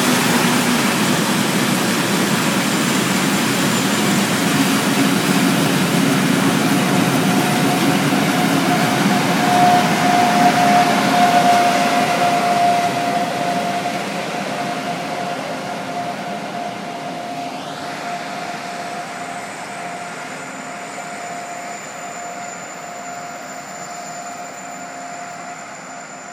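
Heavy coal train rolling past behind a Siemens Taurus (SŽ class 541) electric locomotive, the wagons' wheels making a steady rumble. A steady whine from the locomotive comes in midway and is loudest as it passes, then lingers while the rolling noise fades away.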